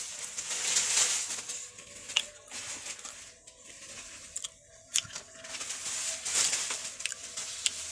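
Crunching and chewing of crisp fried pitha close to the microphone, an irregular crackle with a few sharp clicks.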